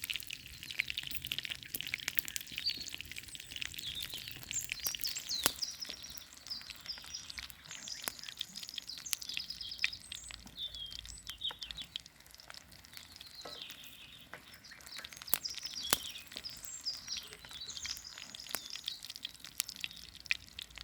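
Food frying over an open campfire: irregular sizzling crackles, dense at first and thinning out after a few seconds. Small birds chirp and sing throughout.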